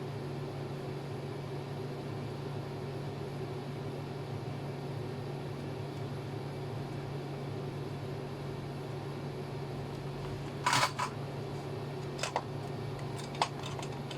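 Steady low electrical hum, with a few brief sharp clicks about eleven to thirteen seconds in.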